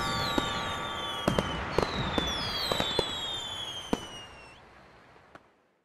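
Fireworks: several falling whistles and a string of sharp cracks and bangs, dying away over the last couple of seconds.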